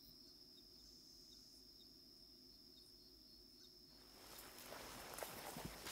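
Faint, steady high-pitched drone of insects. About four seconds in, louder rustling starts, with a few soft knocks near the end.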